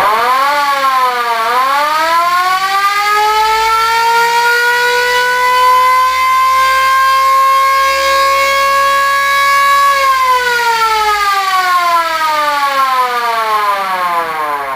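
SIRENO mechanical siren winding up in a rising wail, dipping briefly about a second and a half in, then climbing to a steady top pitch. About ten seconds in it winds down in a long falling wail.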